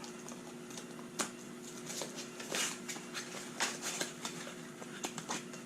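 Irregular clicks and short rustles of a cube box and its packaging being handled and opened, over a steady low hum.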